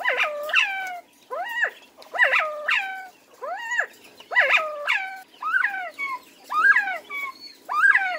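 Northern bobwhite quail calling: a rapid, rhythmic run of short whistles, each sliding up and then down in pitch, about two or three a second, with several birds overlapping.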